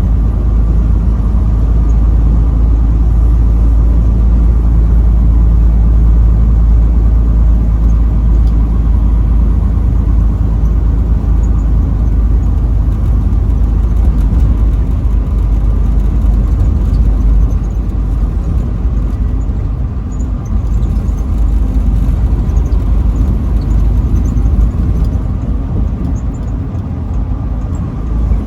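Truck driving on the highway: steady engine drone over heavy road rumble, a little quieter from about two-thirds of the way through.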